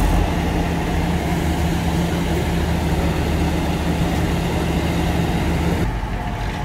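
Vintage lorry engine running steadily at idle, with a low even hum and a deeper engine note beneath. The sound changes abruptly about six seconds in and becomes thinner and quieter.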